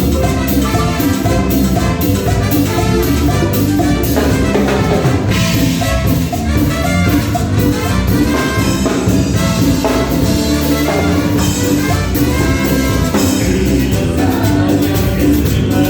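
A live band playing an upbeat Latin dance tune, with brass and percussion over a steady beat.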